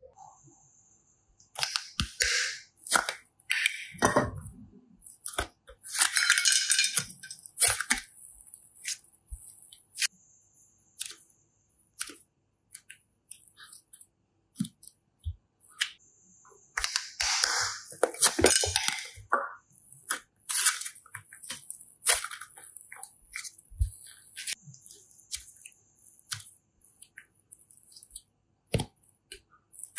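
Slime being squeezed and pulled by hand: bursts of wet crackling and popping, with scattered single clicks between them.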